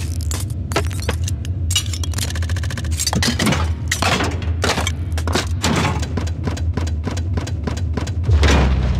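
Sound-design intro track: a steady low bass drone under a rapid run of glitchy clicks, crackles and short falling swooshes.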